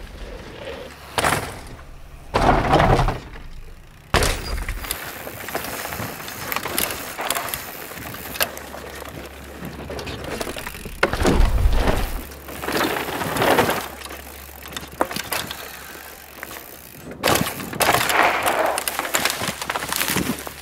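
Specialized Demo 8 downhill mountain bike ridden hard in a string of short passes: tyres crunching and skidding through loose dirt, with sharp knocks, thuds and rattling from the bike on impacts and landings.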